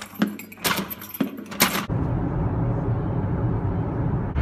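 Keys jangling and clicking, as in locking a door, for about two seconds; then, after an abrupt cut, steady road and engine noise inside a moving car.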